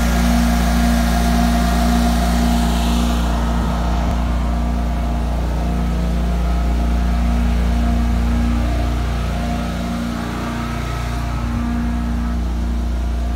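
Trailer-mounted carpet-cleaning and water-extraction machine running steadily, its engine and vacuum blower giving a constant hum with a few fixed tones. A high hiss in it drops away after about three seconds.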